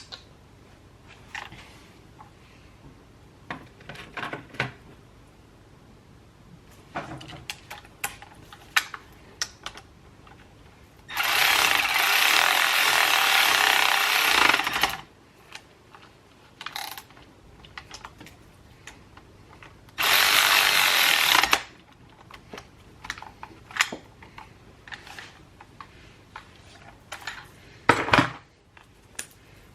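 Two steady bursts of pressurised spray hiss, one about four seconds long and one under two seconds, amid light clicks and knocks of small metal parts being handled.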